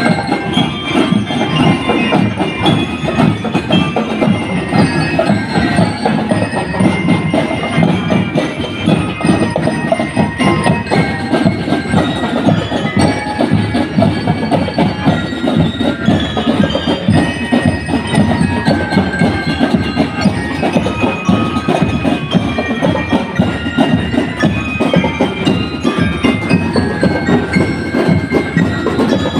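Drum and lyre corps playing a marching tune: metal bell lyres carry the melody over a busy, steady beat of drums.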